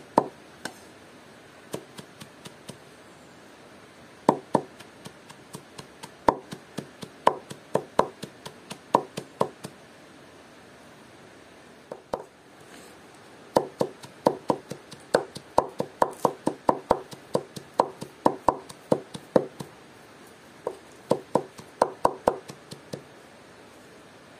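A kitchen knife chopping vegetables on a cutting board: runs of sharp chops, about three or four a second, with a pause of a few seconds about halfway through.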